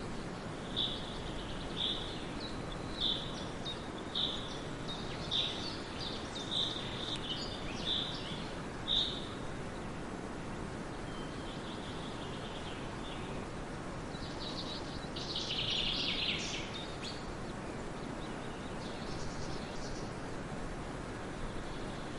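Birds chirping over a steady background hiss. One bird repeats a short, high call about once a second for the first nine seconds. A louder burst of chattering calls comes later, and a few fainter calls follow near the end.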